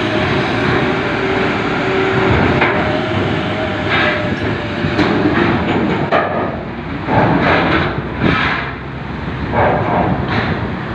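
A ferry's steel ramp door clanking and banging as a heavily loaded truck rolls up over it onto the ship, with irregular metal knocks from about four seconds in over the steady noise of the truck.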